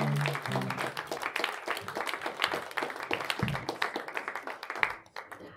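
Audience applauding, with a few low plucked guitar notes in the first second. The clapping thins out and dies away about five seconds in.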